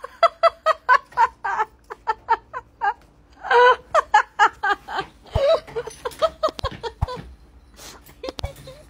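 A person laughing in a long run of short, quick bursts, loudest about three and a half seconds in.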